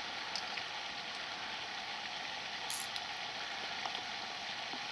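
Steady outdoor background hiss with a few faint, brief ticks.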